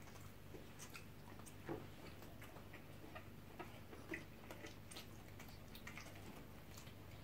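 Faint, irregular clicks and small mouth sounds of people eating rice and chicken: chewing, lip smacks and a spoon on food, with one slightly louder click about a second and a half in, over a low steady room hum.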